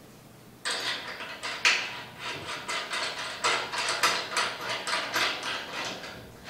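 Stainless steel tank fittings clicking and clinking as they are handled and screwed on by hand. A quick, irregular run of small knocks starts about half a second in.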